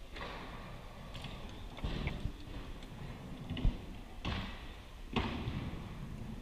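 BMX bikes landing and bumping on a wooden floor in a large hall: several thuds and clatters, the sharpest about three and a half seconds in.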